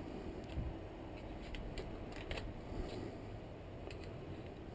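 Scattered light clicks and small scrapes of parts being handled by hand while debris is picked out of a water heater part.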